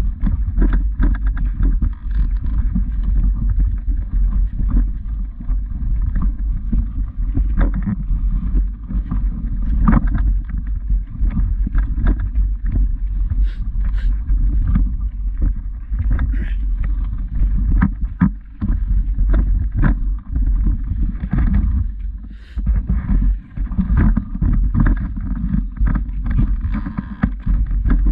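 Wind buffeting the camera's microphone in a steady, fluctuating low rumble, with irregular crunching footsteps on a stony path.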